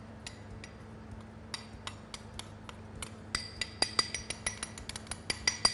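A spoon clinking and scraping against a small ceramic bowl while scooping out starch, a string of light clinks that come more often in the second half.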